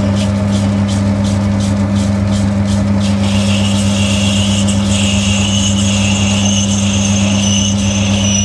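Old Boxford metal lathe running, its motor and drive giving a steady low hum, with high scraping and a thin high whine from the tool working a spinning metal slug.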